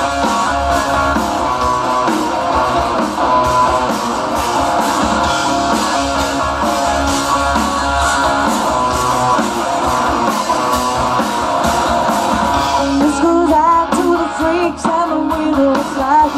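Live rock band playing loud through a PA, with electric guitar out front over bass and drums and some singing. From about 13 seconds in, a wavering, bending melody line stands out.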